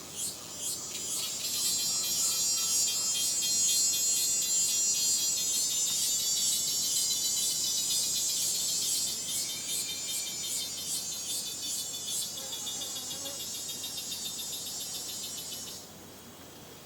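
Rainforest insects calling in a dense, high-pitched, fast-pulsing chorus. It swells in about a second in after a few slow, evenly spaced chirps, holds, then cuts off suddenly near the end.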